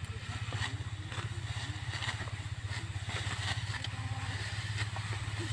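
Small engine running at a steady speed with a low, even hum, the kind that drives a power rice thresher.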